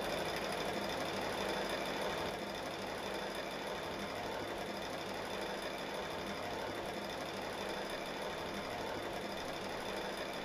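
Steady mechanical hum with a hiss, unchanging throughout, that cuts off suddenly at the end.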